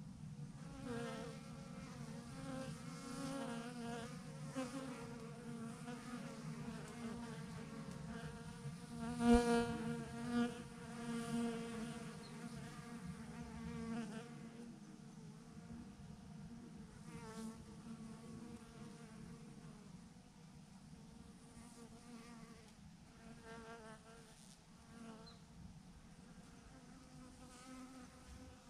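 Swarm of honeybees clustered on a branch, a steady mass buzzing hum. Single bees fly close past now and then, their buzz swelling and fading, loudest about a third of the way in.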